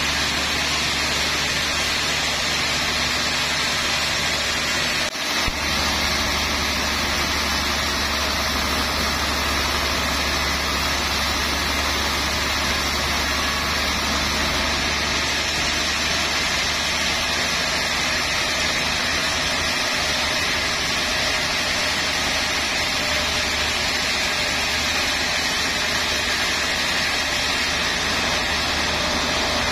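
Large band sawmill running steadily, its wide blade sawing lengthwise through a trembesi (rain tree) log. The noise dips briefly about five seconds in.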